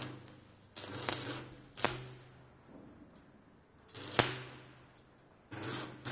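Electric arc welding: crackling, sizzling bursts that stop and start several times, with a low hum beneath them. A sharp knock comes about four seconds in.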